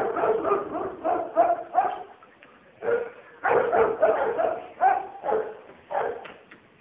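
A dog barking repeatedly in quick runs, about a dozen short barks with brief pauses between the runs.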